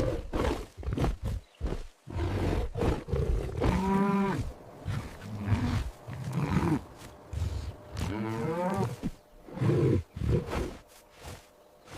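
Recorded animal calls: a run of short rough growls and grunts, with two longer pitched calls that rise and fall, about four and eight and a half seconds in.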